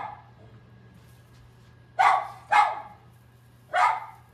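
A dog barking: three short, loud barks, two close together about two seconds in and a third near the end.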